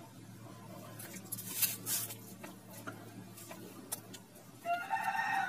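Ballpoint pen scratching across paper in short strokes while writing figures. A long, steady pitched call with several tones begins near the end and is the loudest sound. A faint low hum runs under both.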